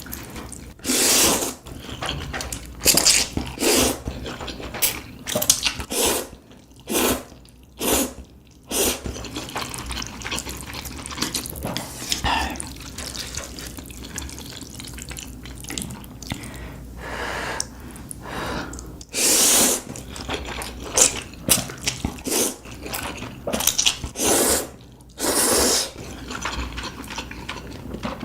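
Close-miked mukbang eating sounds: wet chewing and mouth noises in an irregular run, with a few louder, longer noisy bursts.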